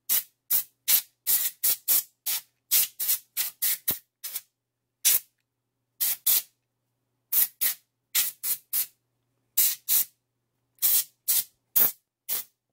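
Can of compressed air duster fired through its straw in about thirty short hissing bursts, two or three a second at uneven spacing, blowing dust off a transistor radio's circuit board.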